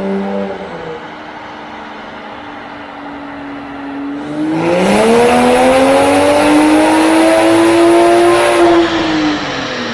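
Tuned Toyota A90 Supra's turbocharged inline-six under hard acceleration: a steady lower drone for the first few seconds, then the engine note climbs steadily for about four seconds before falling away near the end.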